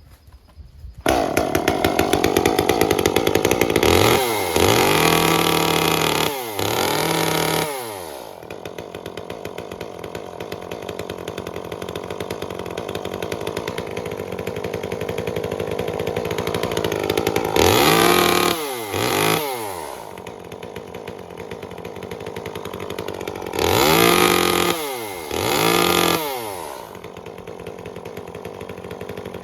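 Echo CS-355 two-stroke chainsaw starting about a second in, then idling and being revved hard in brief blips, three pairs of them, the pitch rising and dropping back to idle each time. Its carburettor is set very rich ('pig rich') and is being adjusted so the saw will rev out cleanly.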